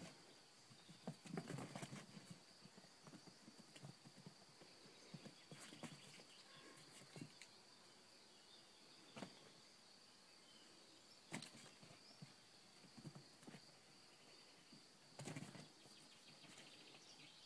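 Near silence, with faint scattered taps and soft low thuds and a faint steady high-pitched whine underneath.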